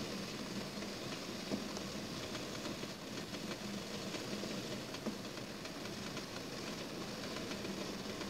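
Steady hiss and low hum of a steamer boiling on a stove, with a few faint clicks.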